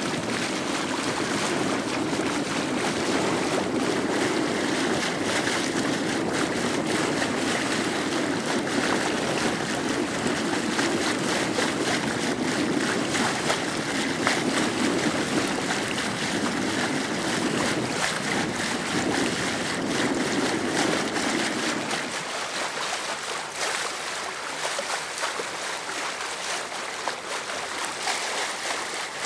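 Steady rush of wind on the microphone and sea water washing, with a low rumble under it that drops away about 22 seconds in.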